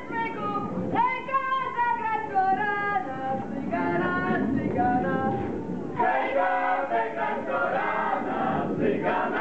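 A mixed group of women's and men's voices singing a Polish folk song together, with long held notes, growing fuller and denser about six seconds in.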